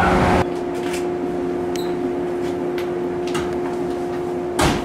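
Steady hum of a JR 115 series electric train car's onboard equipment while it stands at the platform. A louder noise cuts off about half a second in, and a short sharp noise comes near the end.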